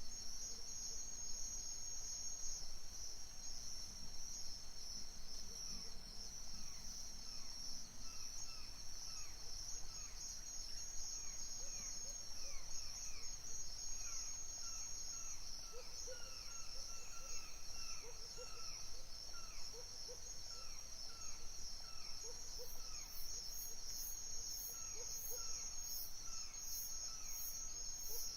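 Crickets chirping in a dense, steady night chorus. Through the middle and later part, a repeated series of short, falling, lower-pitched calls sounds over it. Near the end, a faster, higher pulsing of about two beats a second joins in.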